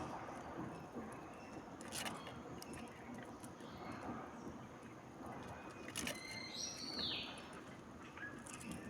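Birds calling over a steady outdoor background: one high call falling in pitch about seven seconds in and a fainter short call near the end, with two sharp clicks, one about two seconds in and one about six seconds in.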